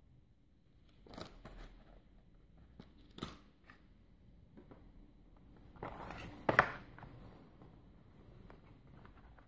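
Cardboard packaging being handled: scraping rustles and a few sharp taps as the box's cardboard inserts and the stylus case are moved, the loudest rustle with a knock a little past halfway.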